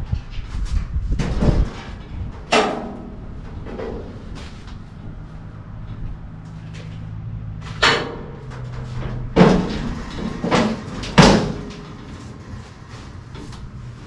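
A series of knocks and clunks from the steel body of a Model T touring hot rod, its door and seat, as a person climbs in and sits down. About six separate knocks, the loudest near the end.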